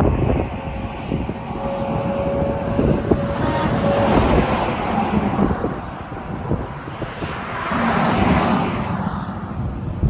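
Highway traffic, heavy trucks among it, passing close by on the roadway beside the walkway, with a rushing sound that swells twice, around four and eight seconds in. Wind buffets the microphone throughout.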